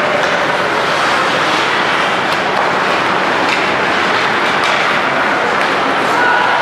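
Ice hockey rink during play: a steady loud noise of skates scraping the ice and arena din, with a few faint knocks from sticks and puck.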